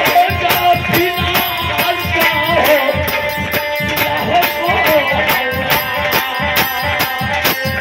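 Live Bhojpuri folk stage music: a fast, steady drum beat with jingling percussion under a wavering melody line.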